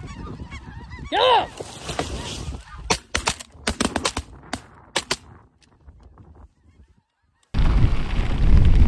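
Snow geese calling, with one loud honk about a second in, then a volley of about ten shotgun shots fired by several hunters over about two seconds. A loud steady rush of noise starts near the end.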